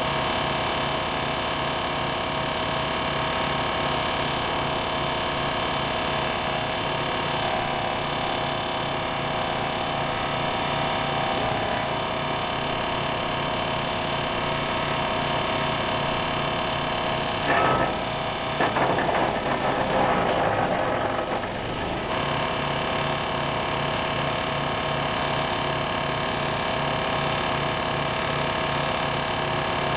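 Wood chipper's engine running steadily. From about 17 to 22 seconds in, a dead branch goes through the chipper: a louder, rough grinding and crackling over the engine, after which the engine runs on as before.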